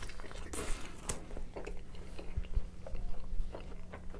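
Close-miked bite into a slice of pepperoni pizza, then chewing: irregular wet mouth clicks and crackles, busiest in the first second.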